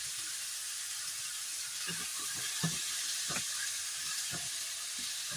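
Sliced fatty beef sizzling in a nonstick wok with cooking wine just poured in, a steady hiss. From about two seconds in, the spatula knocks and scrapes against the pan several times as the meat is stirred.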